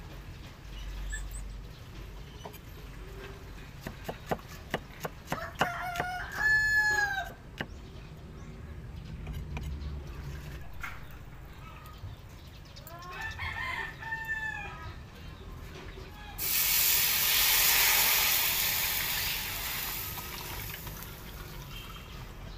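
A rooster crows twice, about seven seconds apart. About sixteen seconds in, liquid poured into a hot wok sets off a loud sizzle that fades over a few seconds.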